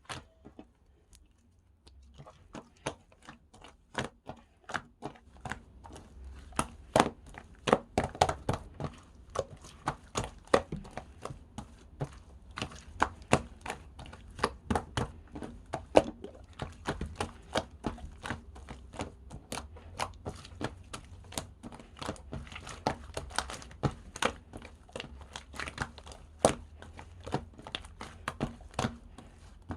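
Slime being squished and worked by hand, giving a dense, irregular run of sharp clicks and pops that starts about two seconds in.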